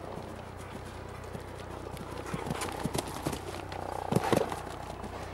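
Horse's hooves drumming on turf at a canter, growing louder as it approaches a show jump, with two heavy thuds just after four seconds in as it lands over the fence.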